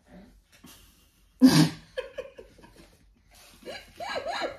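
Women laughing: one sharp, loud outburst about a second and a half in, then a quick run of laughs near the end.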